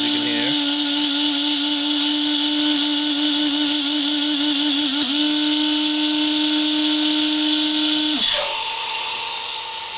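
Spindle of a homemade Mantis CNC engraver, a small can-type electric motor, running free at speed with a steady high whine. About eight seconds in it is switched off, and the whine falls in pitch as the motor spins down.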